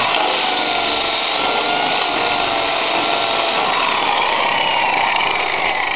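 Milwaukee 7/9-inch polisher fitted with a coarse sanding disc, running and grinding old paint and body filler off a rusted steel quarter panel. It makes a steady harsh grinding, and the motor's whine drifts slightly lower as it bears in.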